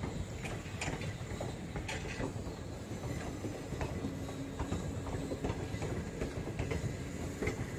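A train running along the track: a steady rumble with scattered metallic clicks and clanks from the wheels and rails.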